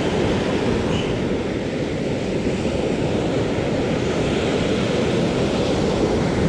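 Steady rush of surf breaking on the beach, mixed with wind buffeting the microphone.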